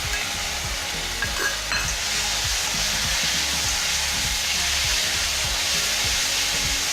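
Ground tomato, ginger, garlic and green chilli paste sizzling in hot oil with browned onions in a pan; the sizzle swells and holds steady from about two seconds in, with a couple of clicks a little before.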